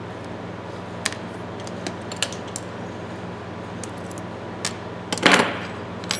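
Small metal ratchet parts and tools clicking and tapping on a workbench: a few scattered light clicks, then a louder short scrape about five seconds in. A steady low hum runs underneath.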